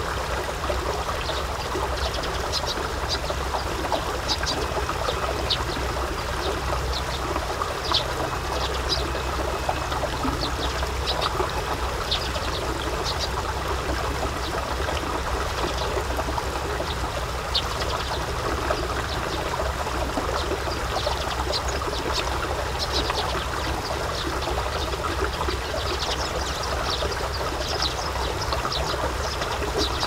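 Rice paddy water trickling and pouring steadily as it runs through a paddy drain, with short high-pitched ticks scattered throughout and a steady low rumble beneath.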